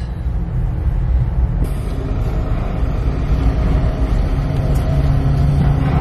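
Car engine and low rumble heard from inside the cabin as the car pulls forward off a car ferry. A steady engine hum grows stronger about four seconds in.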